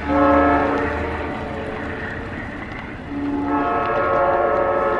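Locomotive air horn on an approaching train, sounding two blasts of several notes at once: a short one at the start and a longer one beginning about three seconds in, over a low rumble. Sounded at a grade crossing, the horn is the train's warning to road traffic.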